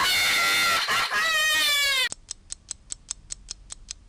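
A loud, high-pitched wailing cry sound effect that cuts off suddenly about two seconds in, followed by a run of faint, even ticks, about six a second.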